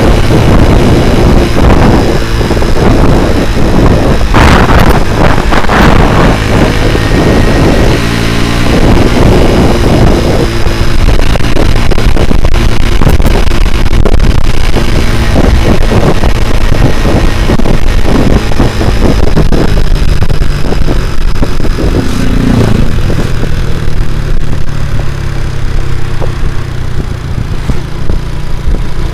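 Small motorcycle under way: a Honda Grand four-stroke single-cylinder engine in a C70 frame, its note rising and falling with the throttle. It settles to a steadier, lower note over the last several seconds.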